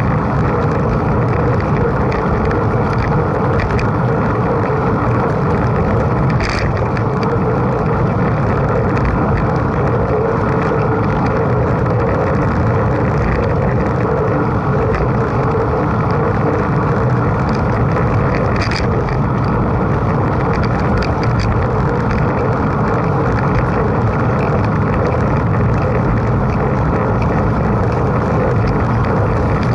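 Steady loud rumble of a mountain bike being ridden at speed: wind on the microphone mixed with tyre and frame noise. Two sharp clicks come about six and nineteen seconds in.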